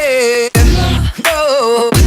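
Background music: an R&B/hip-hop track with sung vocals over a heavy bass beat.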